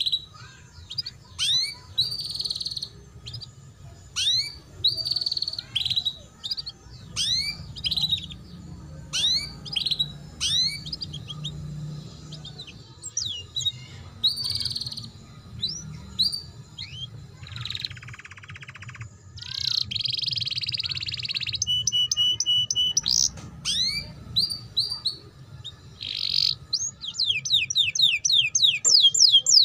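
Domestic canary singing a varied ngeriwik-style song, used as tutor song for young canaries: repeated sharp down-slurred chirps mixed with buzzy notes, a fast even rattle past the middle, and a quick, loud run of falling notes near the end.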